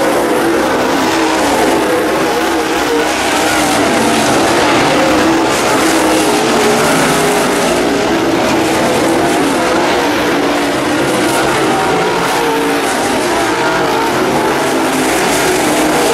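Dirt late model race cars running hard around a dirt oval, their V8 engines loud and continuous. The engine pitch rises and falls as the cars work through the turns.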